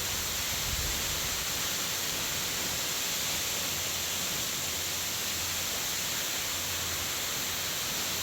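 Steady rush of water flowing over rocks, an even, unbroken noise.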